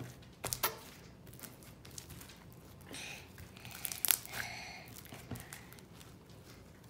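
Red slime being squeezed and kneaded by hand, giving a few sharp sticky pops and crackles of trapped air, the loudest about four seconds in.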